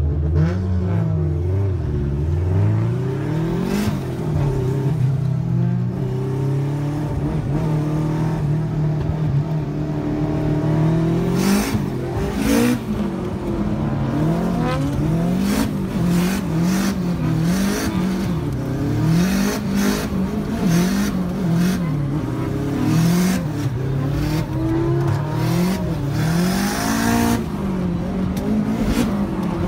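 Drift car engine revving, its pitch swinging up and down about once a second for most of the stretch, with sharp cracks scattered through the second half.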